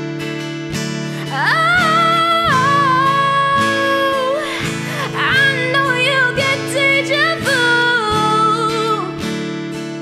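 Acoustic guitar strumming steadily under a woman's solo singing voice, which comes in about a second in with long, high held notes and drops out near the end, leaving the guitar alone.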